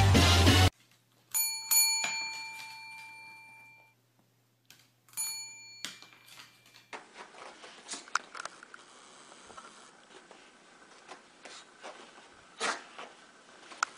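A desk service bell, pressed by a dog's paw, rings twice in quick succession and then once more a few seconds later, each ring fading out. Loud music cuts off just before the first ring, and faint scuffling follows near the end.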